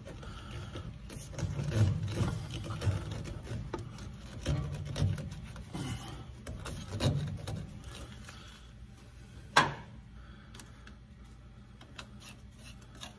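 Quiet hand-and-tool work noises: rubbing, light knocks and scattered clicks, with one sharp click about nine and a half seconds in.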